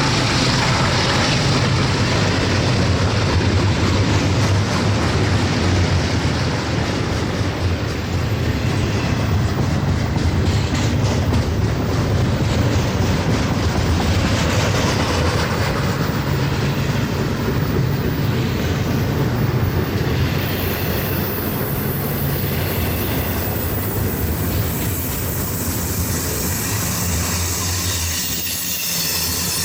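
A freight train rolling past: its diesel locomotives run with a steady low drone, over the steady noise of steel wheels on the rails.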